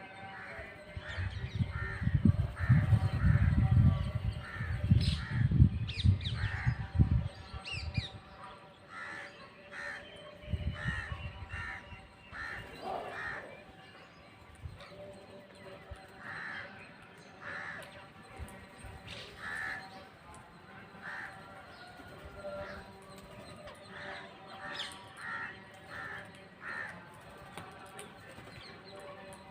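Birds calling over and over with short, harsh calls spaced under a second apart. A loud low rumble covers the first few seconds and returns briefly about eleven seconds in.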